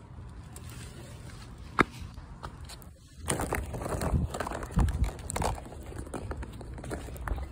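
Footsteps on pavement with rustling and handling noise, busier from about three seconds in, and a single sharp click a couple of seconds in. A low steady rumble runs underneath.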